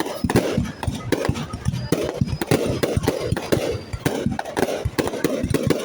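Fireworks going off in a rapid, uneven string of sharp bangs and crackles, several a second.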